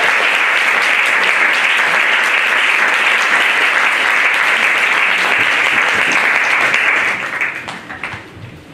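Audience applauding steadily, then dying away about seven seconds in.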